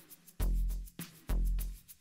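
Instrumental background music with a steady beat, deep bass notes and sharp percussion strokes.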